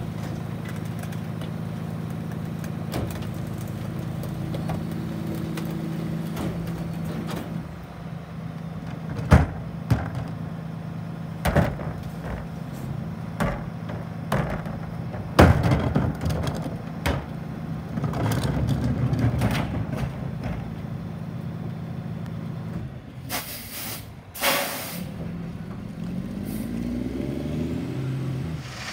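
Rear-loader garbage truck's diesel engine idling steadily while wheeled carts are banged against the hopper to empty them, giving several sharp knocks. Near the end the air brakes hiss as they release, twice, and the engine revs up as the truck pulls away.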